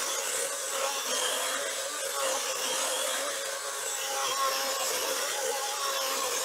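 Greenworks 80V battery chainsaw with a 24-inch bar and ripping chain cutting lengthwise through a sugar maple log, the electric motor running steadily under load with a constant whine.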